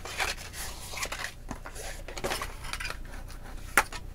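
White cardstock being folded by hand along its score lines, the card rustling and creasing in irregular scrapes and ticks, with one sharp tap near the end.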